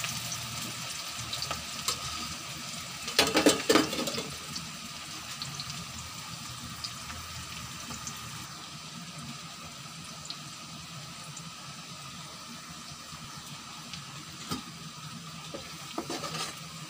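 Chopped onion and green chillies sizzling steadily in hot mustard oil in a metal kadhai, being fried to a light golden brown. A metal ladle clatters and scrapes against the pan about three seconds in and again near the end.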